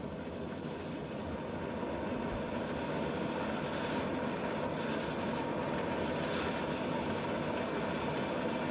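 Shop vac running as a blower, pushing air down a long dryer vent, together with a drill spinning the Linteater brush rods inside the duct to clear lint buildup. A steady machine noise that builds slightly over the first couple of seconds and then holds level.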